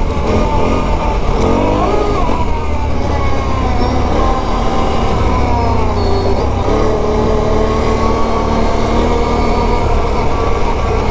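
Can-Am Renegade 1000 XXC ATV's Rotax V-twin engine running under way on a dirt trail, over a steady low rumble of tyres and wind. The engine pitch climbs and drops again about two seconds in, dips once more past the middle, then holds steady.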